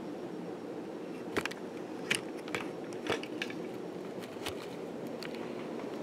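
1983 Casablanca Delta ceiling fan with an Emerson K55 motor running on high: a steady hum and whoosh of air, broken by about seven short, sharp clicks at irregular moments.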